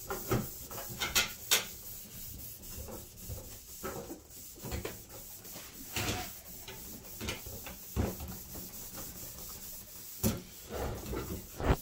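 Irregular rubbing and scraping strokes on a car fender panel as it is wiped clean of sanding dust, with occasional knocks.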